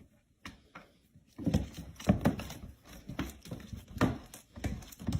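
Irregular run of soft thumps and pats, about two or three a second, starting after a near-silent second and a half.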